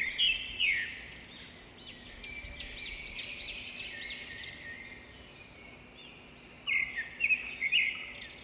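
Small songbirds chirping and singing: clusters of quick chirps near the start and near the end, and a run of repeated high, arching notes in between.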